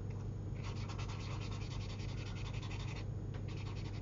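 Jane Davenport Mermaid Marker paint pen scrubbing colour onto sketchbook paper in quick back-and-forth strokes: a fast scratchy rubbing that starts about half a second in, pauses briefly near three seconds, then carries on.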